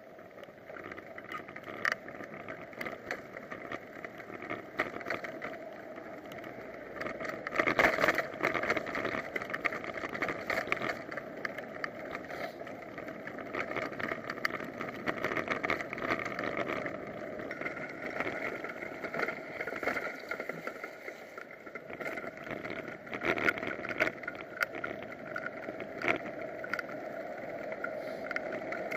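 Steady rushing wind and road noise picked up by an action camera on a moving bicycle, with frequent small knocks from bumps in the road. A louder stretch comes about eight seconds in.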